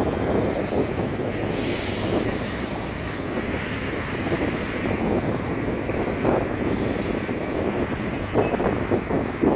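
Wind buffeting the microphone in a steady, gusting rumble over the wash of sea surf.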